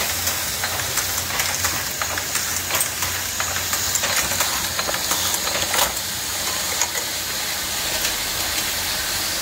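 Vintage circular sock-knitting machines, dating from about 1924, running: a steady mechanical clatter of rapid light ticks over a low hum.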